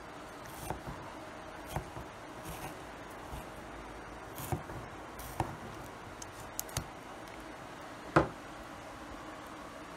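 Seasoned steaks sizzling in oil in a frying pan, with scattered clicks and scrapes of a spatula against the pan as it cuts through the meat. The sharpest knock comes about eight seconds in.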